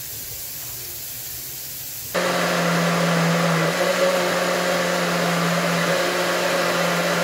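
Electric kitchen blender switched on about two seconds in, its motor running steadily at an even pitch.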